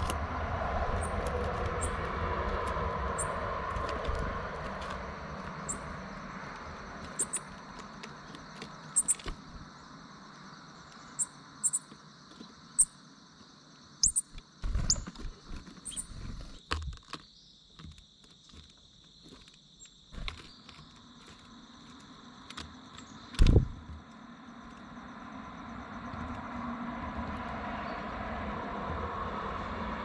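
Outdoor ambience with a passing vehicle on a road, fading in the first few seconds and swelling again near the end. Steady high insect trilling runs throughout, short high bird chirps are scattered through the middle, and a few dull thumps come about halfway through, the loudest one at about three quarters of the way.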